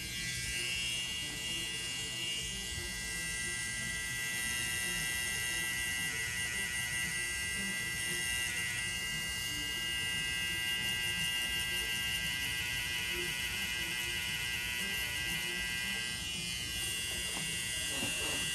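Pen-style tattoo machine running with a steady electric buzz as it works on skin.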